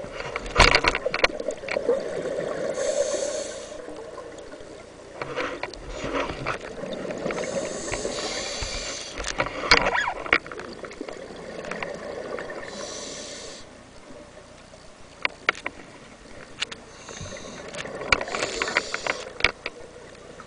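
Scuba diver's regulator breathing underwater: four hissing rushes of exhaled bubbles a few seconds apart, over steady water noise, with scattered short clicks and knocks in between.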